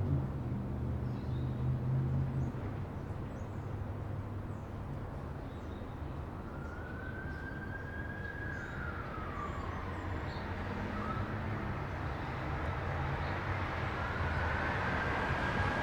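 A distant siren wails over steady traffic hum: it rises and falls once about six seconds in, then rises again near the end. Faint bird chirps sound now and then.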